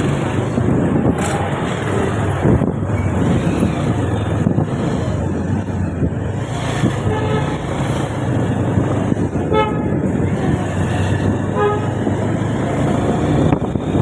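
Motorcycle riding through town traffic: a steady low rumble of engine and road, with several short vehicle-horn toots in the second half.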